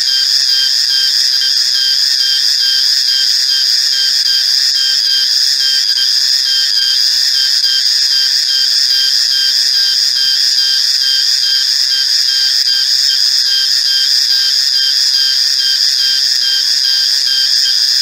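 Male cicada calling: a loud, shrill, unbroken high-pitched drone with a fine rapid pulsing, steady in level.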